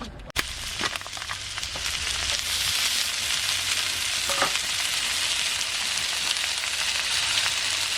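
Meat sizzling as it grills over high heat, the sizzle starting with a sharp click about half a second in and building to a steady, loud hiss.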